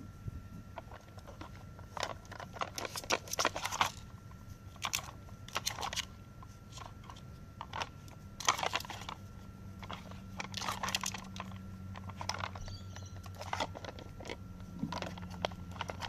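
Nina Ottosson Dog Tornado plastic treat puzzle clicking and clattering in irregular bursts as a puppy nudges its spinning layers, with bits of treat crunching.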